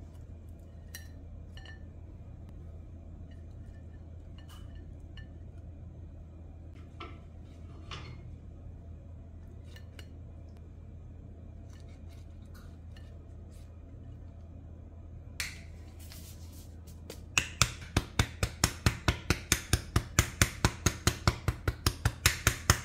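Metal tongs and a spatula lightly clinking on a ceramic plate as waffles and fried eggs are set on it, over a steady low hum. In the last five seconds, rapid sharp taps, about five a second, from a powdered-sugar duster being tapped over the waffles.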